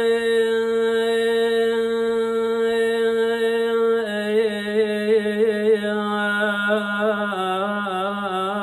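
A man singing an Iraqi mawal, unaccompanied. He holds one long steady note for about four seconds, then breaks into quick wavering melismatic ornaments.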